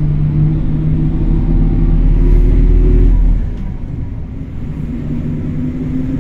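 A motor vehicle's engine running loud and steady under load, then easing off and quieter about three and a half seconds in.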